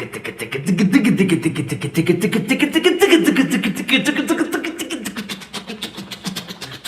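Instrumental break of a song: a fast run of rapidly picked guitar notes, about eight or nine a second, getting quieter toward the end.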